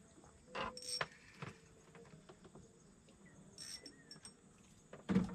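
Insects chirring in a steady high drone, broken by a few short knocks, the loudest near the end.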